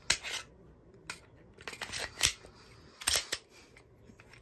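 An empty Glock 43X pistol being handled and set down on a weighing scale: a series of sharp clicks and clacks, about six in all, the loudest a little past two seconds in.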